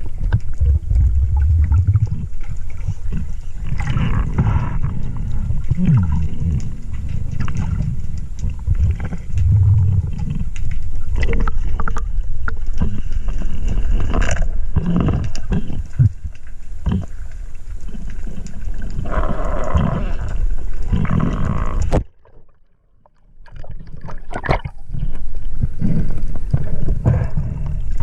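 Muffled, rumbling water noise on a camera's underwater housing, with scattered knocks and a brief sudden drop-out about three-quarters of the way through.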